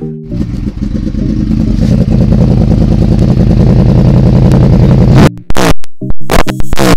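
A loud engine rumble grows steadily louder for about five seconds, then is chopped into short, abrupt bursts near the end.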